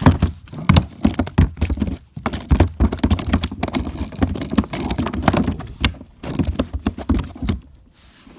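A small hooked largemouth bass being landed at the kayak, with a rapid, irregular run of knocks and splashes that stops shortly before the end.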